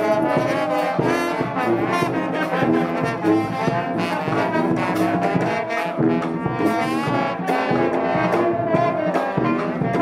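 Street brass band playing a lively tune with trombones to the fore, over sousaphone bass and a steady bass-drum beat.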